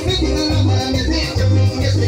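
Loud Latin dance music played over a party sound system, with a rhythmic bass line and a hissing high percussion beat.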